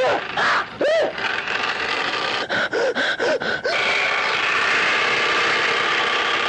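Cartoon sound effects for a UFO's mechanical claw arm: a steady electronic hum and hiss, with short warbling tones that rise and fall. One comes about a second in, and several follow in quick succession around the middle.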